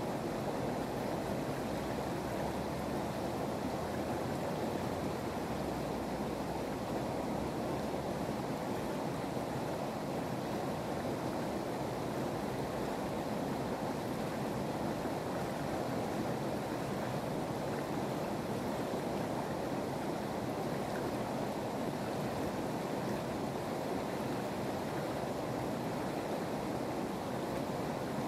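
Shallow river water flowing steadily over its rocky bed, a continuous even rush with no separate sounds standing out.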